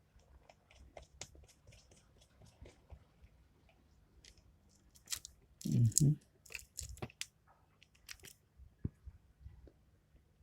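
Scattered small clicks and taps of a precision screwdriver and tiny screws being fitted into a smartphone's frame during reassembly, with a short vocal sound about six seconds in.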